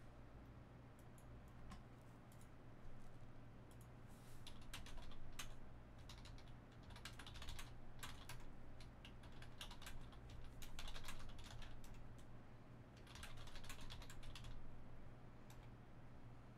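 Faint computer keyboard typing and clicking in several short flurries a few seconds apart, over a low steady hum.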